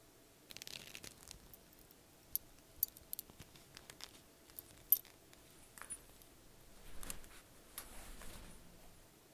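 Leather chest bag being strapped on: small sharp clicks and ticks of its metal buckle and strap, with soft rustles of leather and clothing as the hands move, the loudest click about five seconds in.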